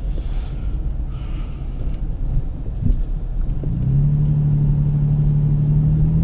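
A car being driven at road speed, with low engine and road rumble heard from inside the cabin. About four seconds in, a steady engine hum rises and holds.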